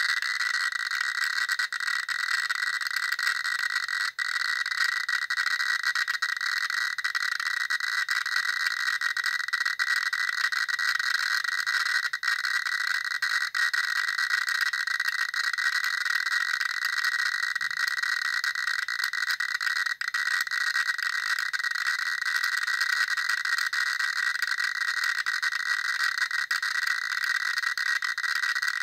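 Geiger counter clicking very fast, at about 5,300 to 5,500 counts per minute (roughly 90 clicks a second), so the clicks blur into a dense, steady rattling crackle. The rate is the sign of strong radiation from a radioactive thorium mineral, thorianite, that is high enough to set the counter's 'High' warning.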